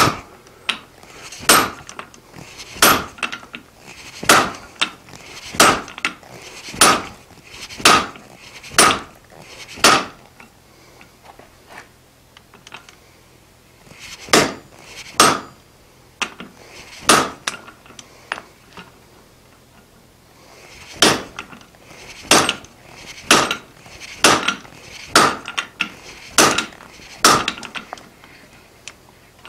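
Hand hammer striking a red-hot mild-steel bar on the anvil while it is drawn out, about one blow a second. The blows come in three runs, with two pauses of a few seconds.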